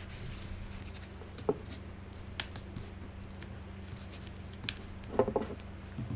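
Fingers picking at the plastic wrap on a product box: scattered small clicks and taps, with a short burst of crinkling about five seconds in, over a steady low hum.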